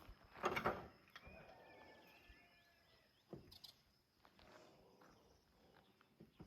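Faint outdoor ambience: light bird chirps and a steady high insect drone, with a brief scuffing sound about half a second in.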